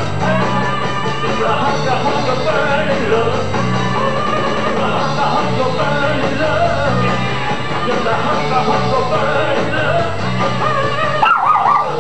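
Rock song with singing and guitar over a steady beat. Near the end a small dog starts yipping over the music.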